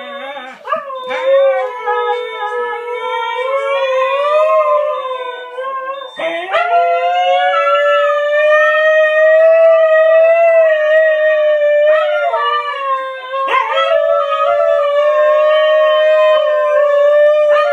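A husky howling in long, drawn-out notes, each new howl starting with an upward slide in pitch, with short breaks a few times. The howling is set off by a mobility scooter being reversed.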